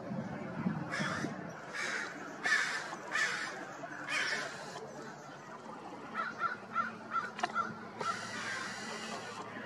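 A crow cawing, about five harsh caws in the first half, followed by a quick run of short chattering notes. A steady low drone runs underneath.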